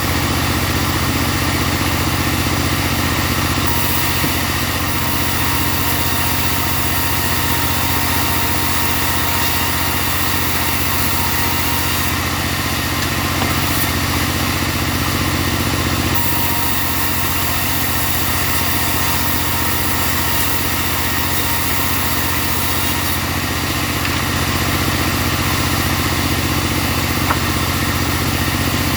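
Portable bandsaw sawmill running steadily on its engine. A higher hiss comes in twice, for about eight seconds and then about seven, as the band blade cuts through the timber.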